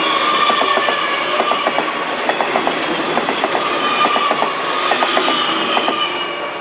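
Tze-Chiang express train passing a level crossing: wheels clicking over the rail joints in quick groups of two to four, under a continuous rumble and a drawn-out high ringing tone, easing slightly near the end.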